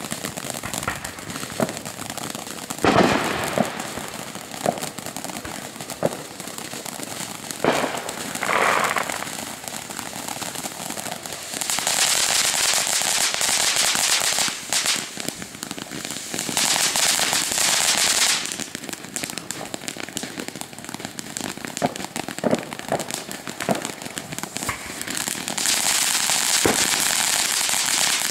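A ground fountain firework spraying sparks, with sharp cracks and pops scattered throughout. Its hiss surges in three long spells, about twelve and seventeen seconds in and again near the end.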